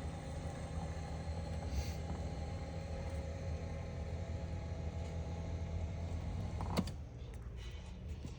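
Electric power-seat motor of a Ford F450 passenger seat running steadily as the seat travels back, then stopping with a click about seven seconds in.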